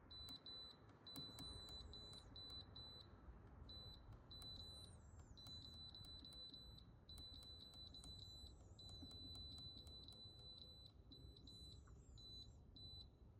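Feelfunn 12-volt car fridge's digital control panel beeping faintly as its buttons are pressed to set the temperature. There are many short high beeps at uneven intervals, a few held longer, with light clicks.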